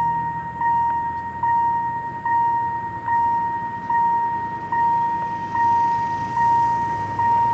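An electric railway warning bell ringing steadily, struck about once every 0.8 seconds, nine strikes in all, each with a clear ringing tone that carries over into the next.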